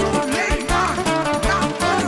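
Live band playing an instrumental dance tune: a drum beat about twice a second and a bass line under a lead melody with quick ornamented turns, with guitar.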